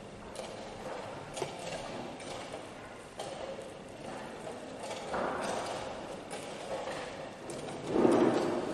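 Room noise around a blitz chess game, with one light knock at the wooden board about a second and a half in; the noise grows louder near the end.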